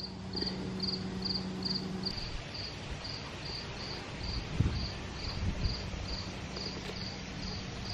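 A cricket chirping steadily, about two chirps a second, over a low steady hum that stops about two seconds in.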